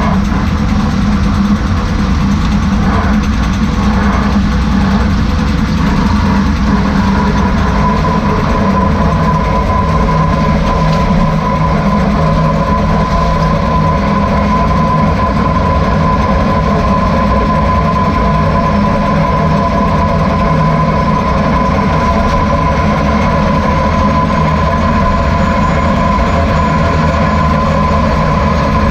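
Mercedes-Benz Sprinter van running, with a steady high whine that sets in a few seconds in and holds over the rumble of the drivetrain and road. The owner puts the bad noise down to a fault in the rear differential.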